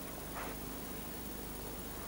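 Steady background hiss and hum of an old videotaped television broadcast, with one brief soft noise about half a second in.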